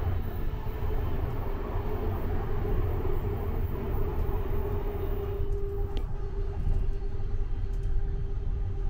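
Electric suburban train heard from inside the carriage as it runs along the track: a steady low rumble with a steady hum over it. The hiss above the rumble eases about five seconds in, and there is a single sharp click about six seconds in.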